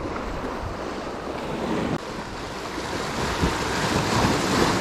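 Sea waves washing onto the shore, with wind buffeting the microphone. The wash dips briefly about two seconds in, then builds louder toward the end.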